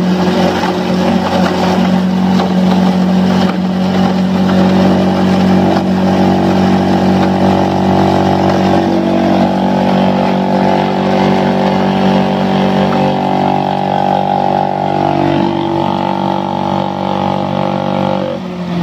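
Homemade tobacco shredder, driven by a 370-watt, 2800 rpm grater-type electric motor, running steadily with a humming whine as it cuts dried, sauce-softened tobacco.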